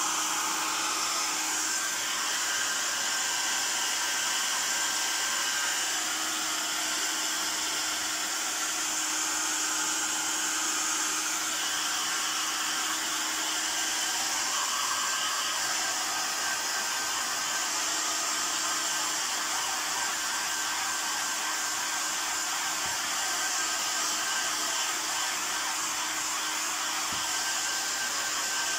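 Handheld hair dryer running steadily, a constant rush of air with a faint steady motor hum, blowing over fresh spray paint to dry it.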